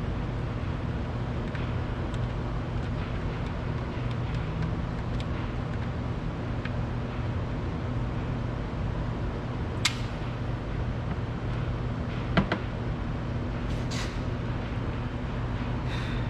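Used engine oil draining in a steady stream from the oil pan's drain hole into a catch pan, with a low steady hum under it. A few short sharp clicks stand out about ten, twelve and fourteen seconds in.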